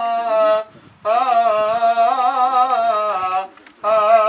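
Coptic liturgical chant sung by a single voice: long held notes with wavering ornaments, in three phrases with short breaths about a second in and again after about three seconds.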